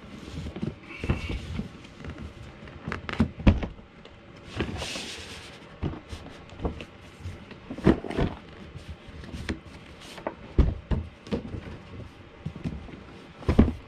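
Cardboard box packaging being handled: a plain inner box slid out of its printed outer sleeve and opened, giving irregular knocks and thumps and a brief scraping rush about five seconds in.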